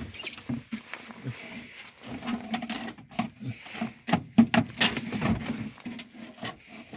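Irregular light knocks, clicks and scuffling of hand tools and metal being handled while work goes on around the starter motor.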